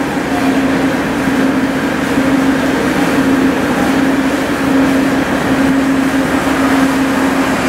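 Steady drone of the car ferry Kitakami's machinery, a constant low hum under a wash of noise, as the ship manoeuvres away from the quay.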